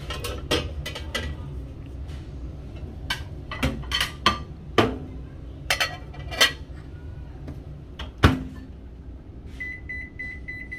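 A china bowl and plate knock and clink as they are set on a microwave oven's glass turntable. A heavier knock comes near the end as the door shuts, then the keypad gives a quick run of short high electronic beeps as it is pressed.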